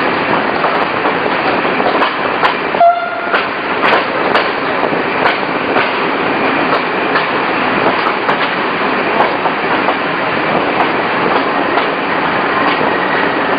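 Regional passenger train running on the rails: a steady rumble with frequent sharp clicks and knocks from the wheels. There is one very short pitched tone about three seconds in.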